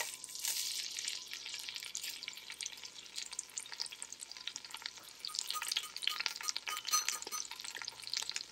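Soaked, drained whole spices (bay leaves, cloves, cardamom, shahi jeera) sizzling in hot oil, ghee and butter in a stainless steel stockpot: a burst of sizzling as they drop in, then steady sizzling with many small crackles and pops.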